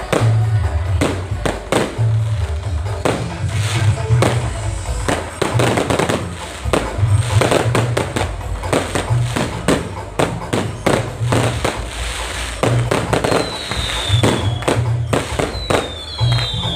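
Fireworks going off in a rapid, irregular series of bangs, over music with a heavy, pulsing low beat. Near the end come a few high whistles that fall in pitch.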